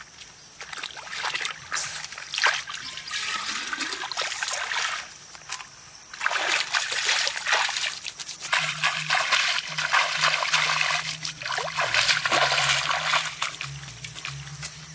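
Shallow pond water splashing and sloshing in quick, irregular strokes as hands scoop and a clay pot is dipped and filled. A steady high whine runs underneath and fades about halfway through.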